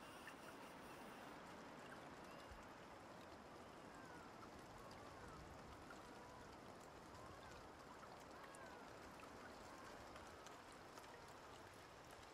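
Near silence: faint outdoor forest ambience, a soft even hiss with faint short high calls now and then.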